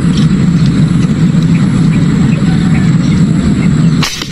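A steady low rumble. About four seconds in it drops out for a moment under a short hiss.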